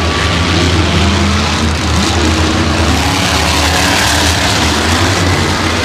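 Monster truck engine running loud, with a deep steady rumble.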